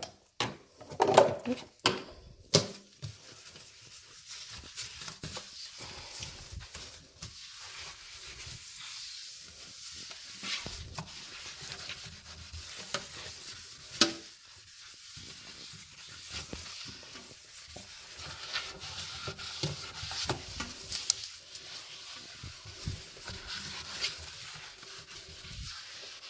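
Magic eraser sponge scrubbing a sink basin sprayed with bleach cleaner: a steady, scratchy rubbing. There are a few knocks in the first two or three seconds and a single sharp knock about fourteen seconds in.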